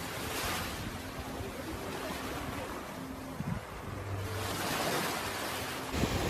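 Sea waves washing in, a steady rush that swells about half a second in and builds again from about four seconds in.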